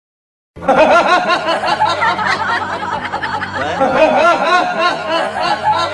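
A man laughing without pause, starting suddenly about half a second in.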